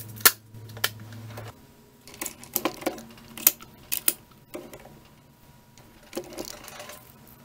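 Sharp metallic clicks and clinks from hands handling the machined aluminium block and its chips in the milling vise, a quick cluster of them partway through and a few more near the end. A steady low hum cuts off about one and a half seconds in.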